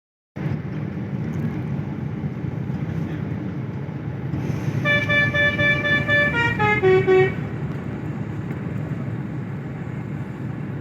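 Bus's musical 'telolet' horn plays a short tune about halfway through: one note pulsing several times, then a quick run of falling notes. Steady engine and traffic rumble runs beneath it.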